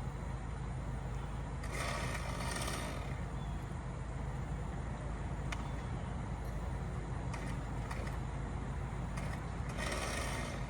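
An engine running steadily with a low hum, with two brief rushing, hissing bursts, one about two seconds in and one near the end.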